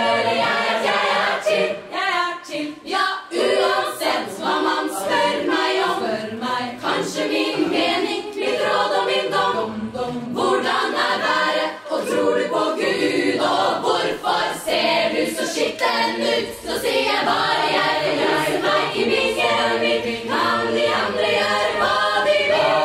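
Women's choir singing a cappella, with many voices in harmony and no instruments, the lines broken into short rhythmic phrases.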